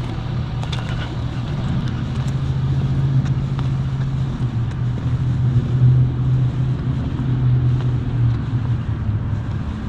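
An engine running steadily at a constant speed: a low, even hum that swells a little in the middle.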